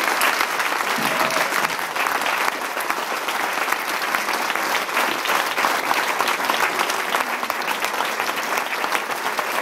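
Banquet audience giving a standing ovation: many people clapping steadily and continuously.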